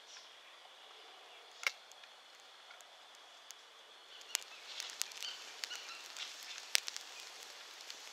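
Campfire of dry twigs catching from a solid-fuel tablet. A few faint crackles come at first, then from about halfway the crackling turns into a quick run of sharp pops as the twigs take light.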